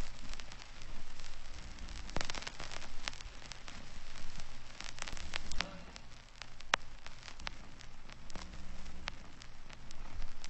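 Surface noise of an aged soundtrack: a steady hiss and crackle with scattered sharp pops and clicks.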